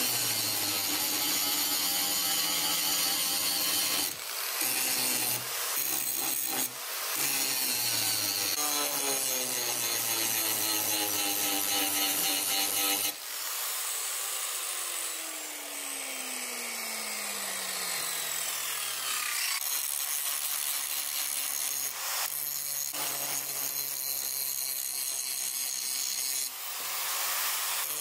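Angle grinder grinding rusty steel railroad spikes, its motor whine shifting as the disc bites. About halfway in it is switched off and spins down in a slowly falling whine. Then it runs and grinds again through the last third.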